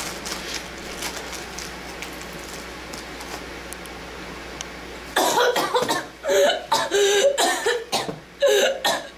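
A girl coughing hard in repeated fits about half a second apart, as if choking on food, starting suddenly about five seconds in after a stretch of quiet room noise.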